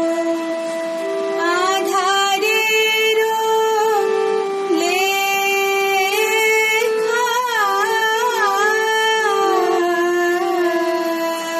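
A girl singing a slow, ornamented melody over a steady held instrumental accompaniment. Her voice comes in about a second and a half in, pauses briefly near the middle, and stops shortly before the end, while the accompaniment keeps sounding.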